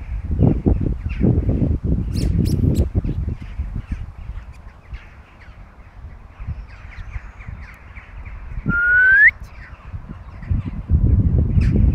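Birds calling in the background over a low, gusty rumble of wind on the microphone. About nine seconds in comes a single short, clear whistle that rises in pitch, the loudest sound.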